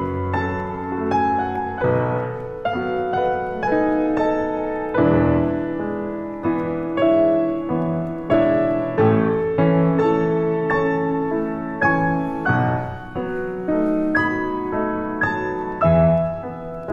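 Background piano music: a slow solo piano piece, notes struck about twice a second over held low notes.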